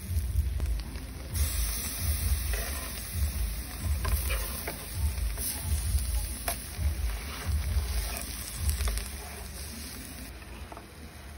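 Foil-wrapped fish and vegetables sizzling on an electric grill, a steady hiss that fades out near the end. There is an uneven low rumble underneath, and a few sharp clicks of metal tongs against the foil around the middle as the fish is turned.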